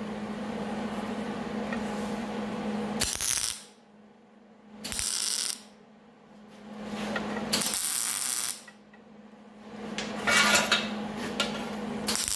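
Welder laying a few short tack welds to fix a piece of steel pipe onto sheet metal: five short bursts, each half a second to a second long, a couple of seconds apart, over a steady low hum.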